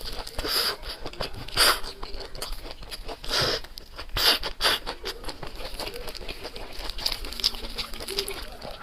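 Close-miked eating: a person chewing and crunching food, with many small mouth clicks and four louder crunchy bursts in the first half.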